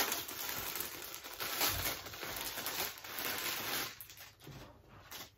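Clear plastic packaging bag rustling as a pair of jersey leggings is pulled out of it and the bag is tossed aside. The rustling is steady at first and dies away about four seconds in.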